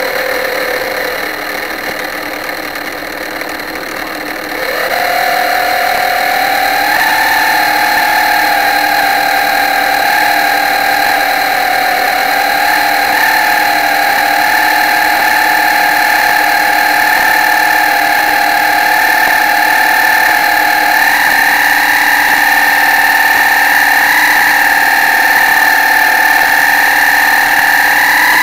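Motor of an RC model pilot boat, picked up by a camera on its deck: a low, quieter whine for the first few seconds, then a sharp rise in pitch and loudness about four and a half seconds in as it speeds up, after which it holds a steady high whine.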